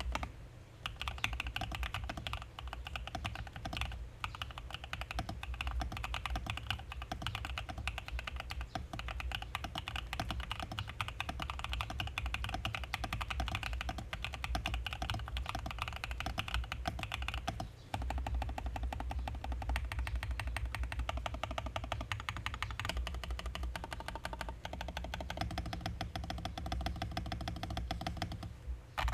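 Continuous typing on a Mode65 custom mechanical keyboard with lubed Designer Studio White Jade tactile switches, PBT keycaps and an FR4 plate in an isolated top-mount aluminium case: a rapid stream of keystroke clacks. It breaks off briefly about four and eighteen seconds in.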